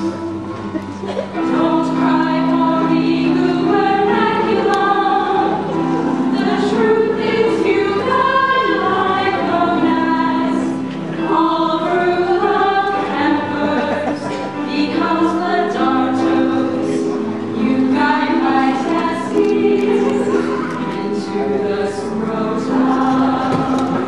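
A group of women singing a song together in harmony, several voices holding notes at once and moving from chord to chord.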